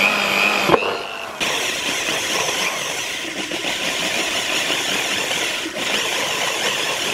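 Small electric drill running under load, its bit cutting through an aluminium heatsink plate, with a motor whine that wavers in pitch. The sound dips briefly about a second in, then the drilling goes on steadily.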